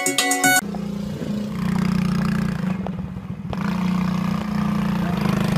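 Small quad bike (ATV) engine running as it is ridden, easing off briefly midway and picking up again. Keyboard music plays before it and cuts off suddenly under a second in.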